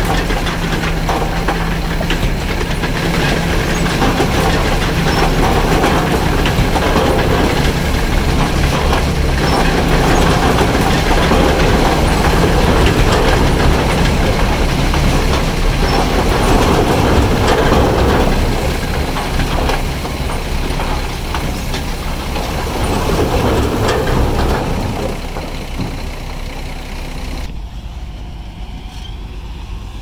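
Bulldozer working: its diesel engine runs steadily with heavy mechanical noise, swelling and easing, then getting quieter near the end.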